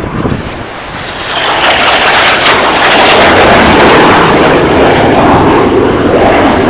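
Two BAE Hawk T1 jets flying past low and close: the noise of their jet engines swells about a second and a half in and stays loud.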